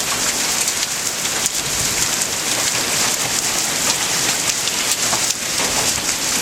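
Heavy thunderstorm downpour of rain mixed with hail: a dense, steady hiss of rain with many sharp ticks of drops and hailstones striking hard surfaces.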